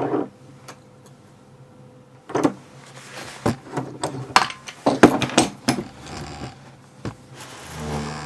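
Irregular clicks and knocks of tools and lock parts being handled while a picked pin-tumbler lock cylinder is taken apart. A rougher scraping stretch comes just before the end.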